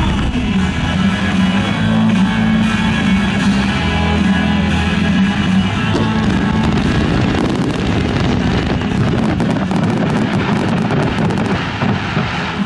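Rock music with electric guitar, with fireworks crackling and popping over it, most densely in the second half.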